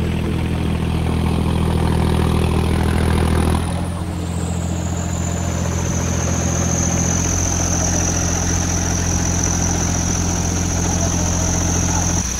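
John Deere 5039D tractor engine running at a steady speed under load, pulling a disc harrow through the soil. Its note eases a little about four seconds in, and a thin high whine above it slides lower at the same point.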